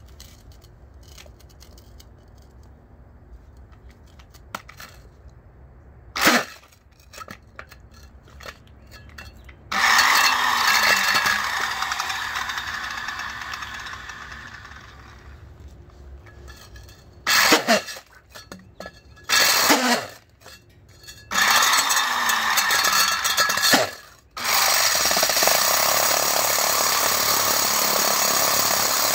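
Homemade core drill, an angle grinder driving a pipe core bit, switched on and off in several runs: one longer run that fades away, a few short bursts, then running steadily through the last few seconds. Before it starts there are only a few clicks and a sharp knock from handling.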